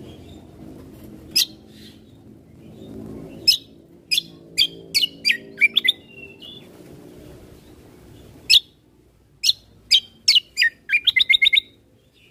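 Kecial kombo (cucak kombo, cangklikan) singing: loud, sharp, downsweeping whistled chirps in bursts, ending in a fast trill near the end.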